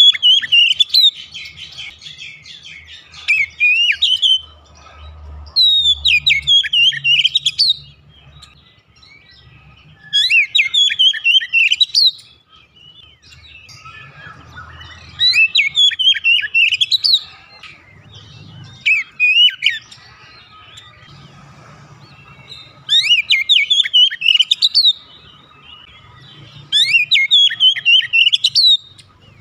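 Oriental magpie-robin (kacer) singing: repeated phrases of rapid, varied whistled notes, each one to two seconds long, with short pauses between them.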